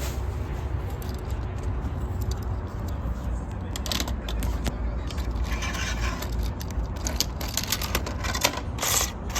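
Irregular clicks, scrapes and rattles of small hard objects being handled, over a steady low rumble. The clicks start about three and a half seconds in, with a longer rustling scrape near the middle.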